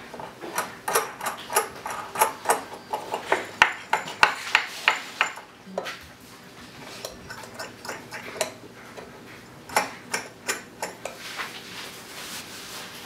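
Steel roller chain clinking as it is handled and fed onto the sprockets: a run of quick, irregular metallic clicks for the first five seconds or so, then after a short pause sparser clicks.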